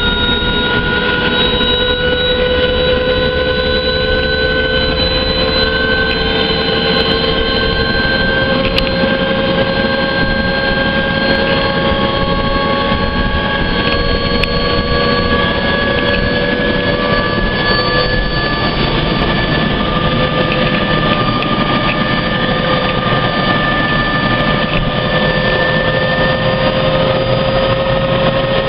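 Helicopter turbine and rotor noise: a loud, steady drone with a whine that rises slowly in pitch.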